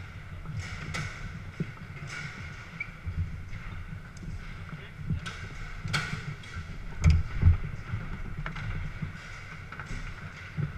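Garlando foosball table in play: irregular sharp clicks and knocks of the ball struck by the figures and of the rods being worked, with two heavier thumps about seven seconds in, over the steady background noise of a busy hall.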